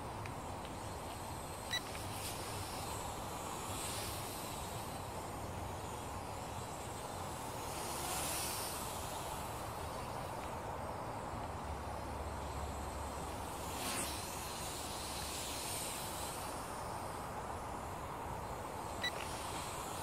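Steady hiss of a small toy quadcopter's propellers in flight, swelling and easing a little, with two short beeps, one about two seconds in and one near the end.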